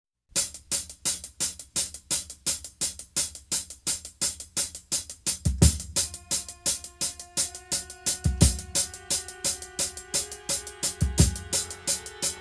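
Background music: a steady ticking beat about four times a second, joined about halfway through by a deep drum hit every few seconds and held chords.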